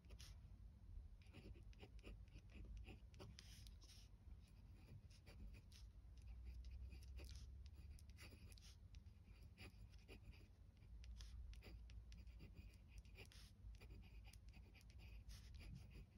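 Glass dip pen nib scratching faintly across paper as it writes with watercolour, in many short strokes over a low steady hum.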